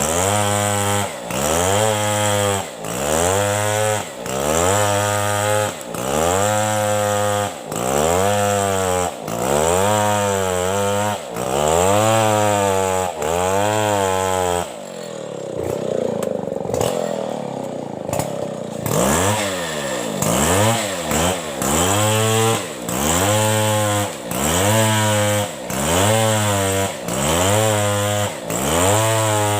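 Two-stroke chainsaw cutting through a coconut trunk lengthwise, its engine pitch rising and falling about once a second. For about four seconds around the middle it runs lower and smoother, then the rising and falling resumes.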